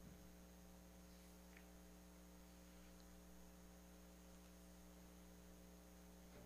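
Near silence: a steady, faint electrical hum in the recording.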